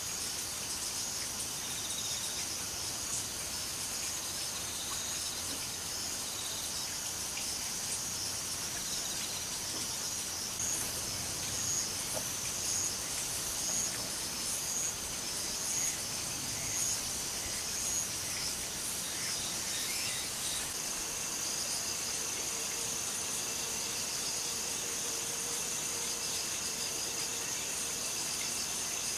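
Insects trilling in a high, steady band, which for a stretch in the middle beats in regular pulses about once a second, then settles into a continuous drone for the last third.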